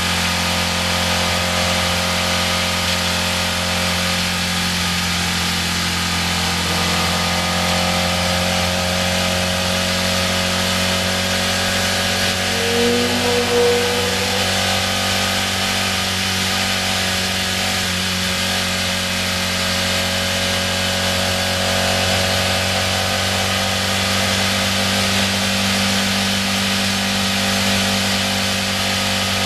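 Historic sports racing car's engine running at a steady, fairly constant engine speed, heard from the open cockpit over a steady rush of wind and road noise. There is a brief rise in pitch about halfway through.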